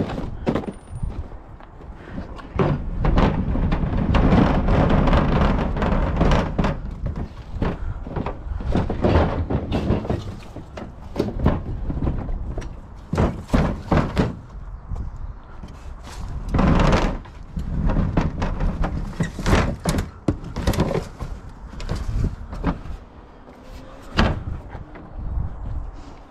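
Plastic wheelie bins being wheeled over a paved path and set down, with a rolling rattle of the wheels for a few seconds, then repeated knocks and thuds of the plastic bins and lids being bumped together.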